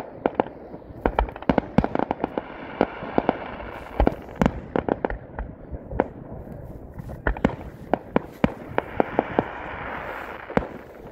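Aerial fireworks going off: a dense, irregular run of sharp bangs and cracks. About eight seconds in there is a second or two of steady crackling.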